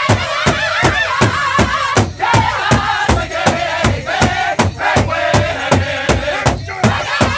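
Powwow drum group singing in high-pitched unison around a large shared drum, beaten together at a steady pace of about four strokes a second.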